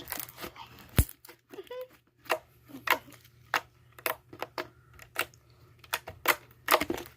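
Slime being squeezed and stretched in the hands, giving irregular sharp pops and crackles, with a loud pop about a second in.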